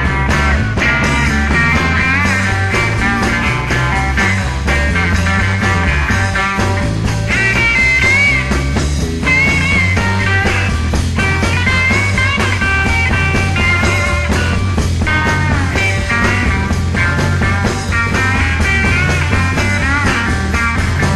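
Live psychedelic rock band playing an instrumental passage: a lead guitar line with bent, wavering notes over a steady bass line and drums, with no singing.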